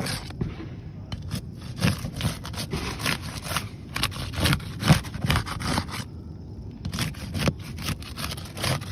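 A tool scraping and prying under asphalt roof shingles to break their adhesive seal strips, with irregular scrapes and sharp cracks and a short pause about six seconds in.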